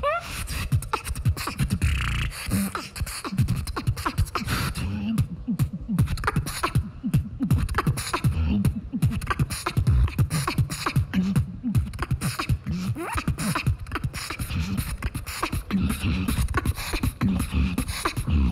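Human beatboxing into a cupped handheld microphone: a fast, unbroken run of sharp snares and clicks over short bass notes that slide in pitch.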